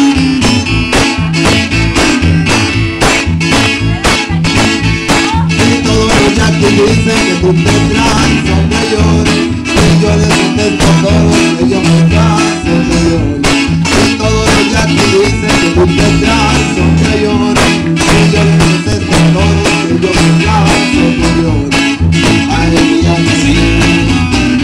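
Norteño trio playing live: bajo sexto and acoustic guitar strumming over an electric bass line, with a steady rhythm.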